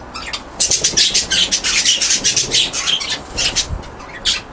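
A mixed flock of small aviary birds (finches, canaries, budgies) chirping, many quick high calls overlapping, with a short lull just before the end.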